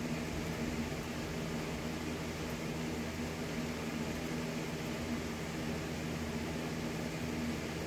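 Steady machine hum with a constant low drone and a hiss over it, such as a fan running.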